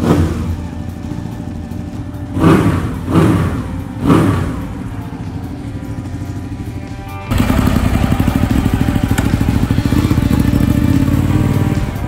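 Ducati 899 Panigale's twin-cylinder Superquadro engine idling on fresh oil, with a throttle blip at the start and three quick revs a little after two seconds in. About seven seconds in, the sound switches abruptly to the bike's exhaust running louder and steadier.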